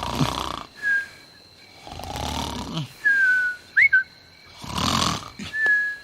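Cartoon snoring sound effect. A rasping snore on each breath in is followed by a thin, high whistle on the breath out that dips slightly in pitch, and the cycle repeats three times, about every two and a half seconds.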